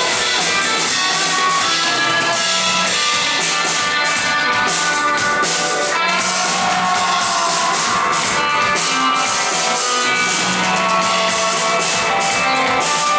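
Rock band playing live without vocals: electric guitars over a drum kit with cymbals, at a steady level.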